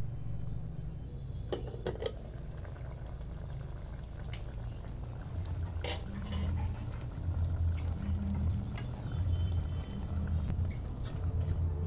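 Pot of braising chicken bubbling at a boil over a charcoal stove, with a low bubbling rumble that grows stronger and pulsing in the second half. A few light clicks in the first half.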